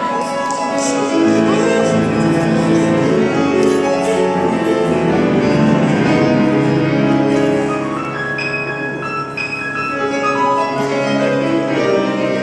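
Grand piano played live, full chords and a melody line ringing on, heard from the seats of a recital hall.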